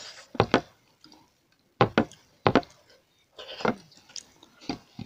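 Close-up eating sounds of rice and dal eaten by hand: a scattering of short, wet smacks and clicks from mouths and fingers, several coming in quick pairs.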